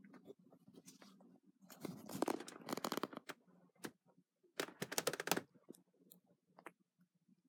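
Two bursts of rough scratching and rubbing right at the microphone, about two seconds in and again about five seconds in, with a few small clicks between and a faint steady low hum underneath.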